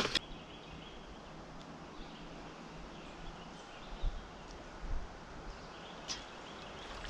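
Quiet outdoor ambience by the water: a faint steady hiss broken by a few soft low bumps near the end.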